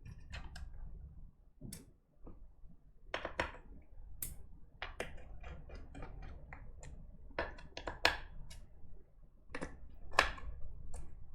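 Irregular light clicks and taps of small hard keyboard parts being handled during mechanical keyboard assembly, a few sharper knocks among them.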